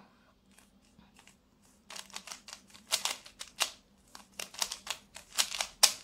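A stickerless 3x3 Rubik's cube being turned by hand: an irregular run of quick plastic clicks and clacks as its layers are twisted, starting about two seconds in.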